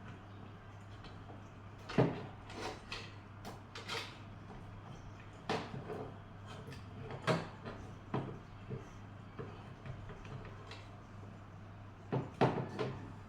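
Irregular clicks and knocks of hard plastic parts and tools being handled and set down, over a steady low hum.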